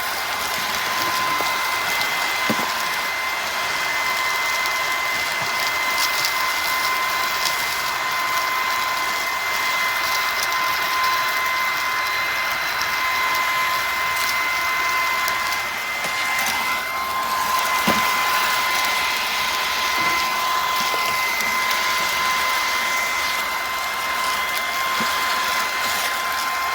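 Bissell PowerClean FurFinder cordless stick vacuum running steadily, its motor giving a constant high whine over a rushing airflow noise.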